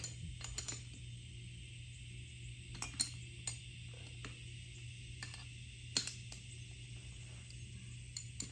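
Scattered light metallic clicks and clinks from a 3/8-inch air fitting adapter being handled and fitted to an air tool, the sharpest about three and six seconds in, over a steady low hum.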